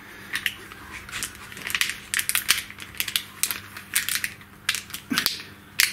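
Corrugated plastic cable conduit crackling and clicking irregularly as it is twisted and pushed by hand onto a cable gland.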